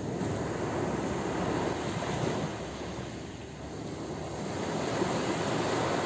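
Ocean surf washing onto a shore, a steady rush that ebbs about halfway through and swells again.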